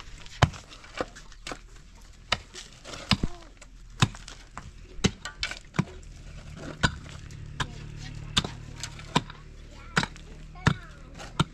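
Hand tools striking during building work: a series of sharp, irregular knocks, roughly one or two a second. A faint low hum joins about halfway through.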